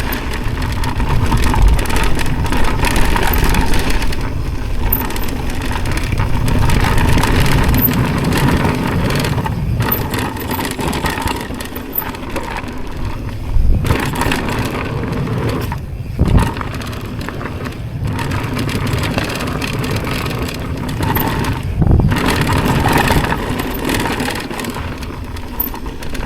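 Mountain bike riding fast down a rough dirt trail: tyres rolling over dirt and rocks, the bike rattling and air rushing past, with a few hard thumps about fourteen, sixteen and twenty-two seconds in.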